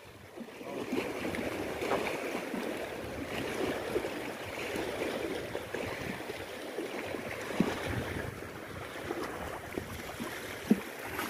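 Small waves lapping and splashing against the concrete steps at the water's edge, a steady wash of water, with a few faint knocks.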